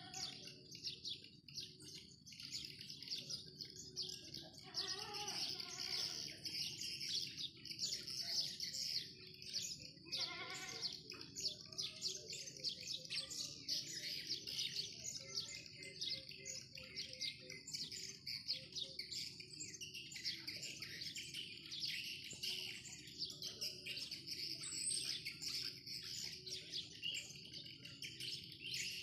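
Dense, continuous twittering chirps of edible-nest swiftlets, many calls overlapping without a break.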